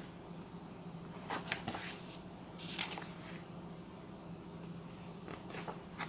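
Pages of a large book being turned by hand: a few short paper rustles and flicks, over a faint steady low hum.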